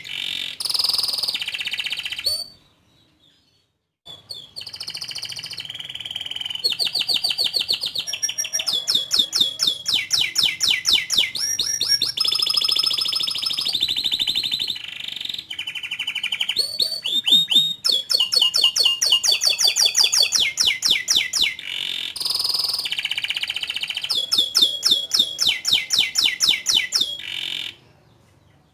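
Domestic canary singing a long song of fast trills and rapid repeated chirps. It pauses briefly about two seconds in and stops near the end.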